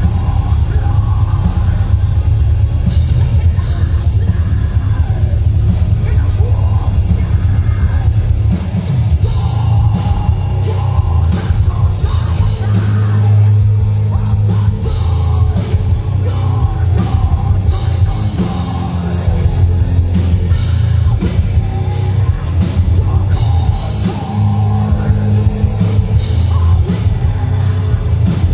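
Metal band playing live through a large outdoor PA: pounding drums and cymbals with heavy distorted guitars and bass, the low end strongest, heard from the audience.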